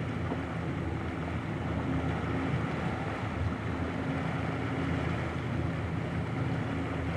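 Motorboat engine running steadily at slow speed, a low hum under the wash of water and wind.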